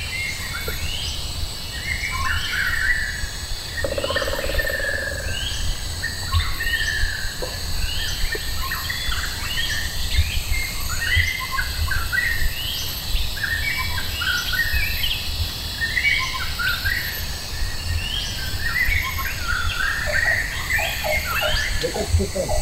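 Birds calling over and over in short rising chirps, several a second. Underneath run a steady high insect drone and a low rumble.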